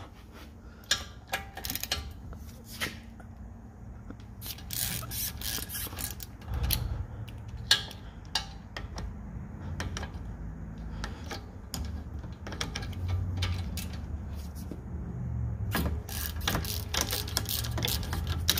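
Hand ratchet clicking in repeated bursts as it loosens the 7 mm hex guide-pin bolts of a BMW E60 front brake caliper.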